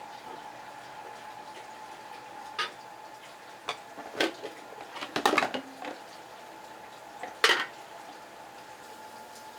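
Metal pots and kitchen utensils clattering: a few scattered knocks, a cluster of clinks and clanks about four to six seconds in, and one sharp clank near the end, over a steady hum.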